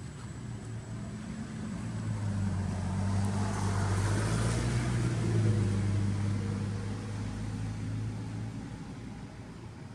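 A car driving past on the road: engine hum and tyre noise swell to a peak around the middle and fade away near the end.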